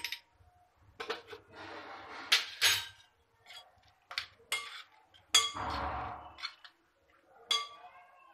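Metal spoon clinking against a glass mixing bowl, with soft scraping and squelching as shredded vegetables in cream are stirred; several sharp, irregular clinks.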